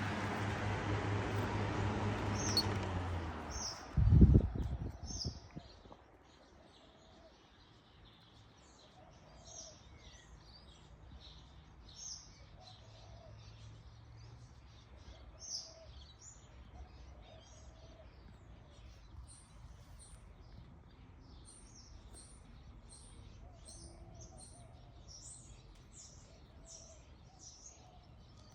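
Box fan running with a steady rushing noise and low hum, then a loud low thump about four seconds in as the noise dies away over the next two seconds. Small birds then chirp repeatedly in short, high calls.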